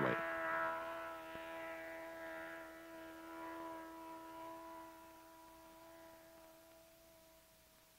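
A racing Evinrude V4 two-stroke outboard with tuned stacker exhausts runs at a steady high pitch at speed and fades away over the several seconds until it is barely audible.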